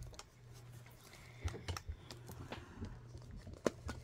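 Hard plastic toy ball halves being handled and pressed together: a scattering of light clicks and taps, the sharpest about three and a half seconds in.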